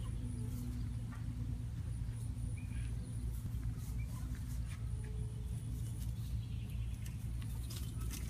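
A steady low hum with a thin high whine over it, and scattered faint peeps and rustles from two young chickens scuffling in grass.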